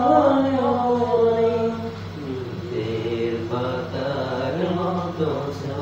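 A man singing a Bengali gazal unaccompanied, drawing out long wordless notes that glide up and down. The voice eases off about two seconds in, then takes up another held phrase.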